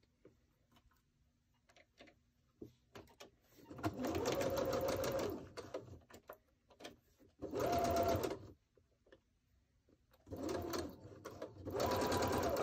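Computerized sewing machine stitching a quarter-inch seam through pieced quilt fabric. It runs in three short bursts of rapid needle strokes, the first about four seconds in, with brief pauses and small handling clicks between them.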